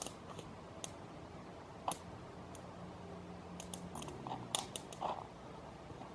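Campfire crackling: faint, irregular sharp pops and snaps from burning wood, bunched together between about three and a half and five seconds in.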